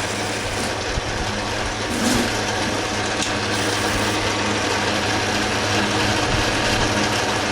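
Metal lathe running steadily, its cutting bit taking a pass on a piece of scrap stock: a constant motor hum under an even cutting hiss.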